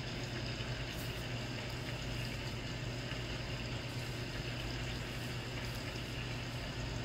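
Steady low hum with an even hiss over it, an unchanging background drone.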